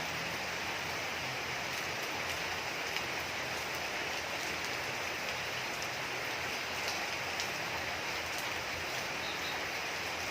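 Steady rain falling: an even hiss with scattered sharper ticks of single drops striking.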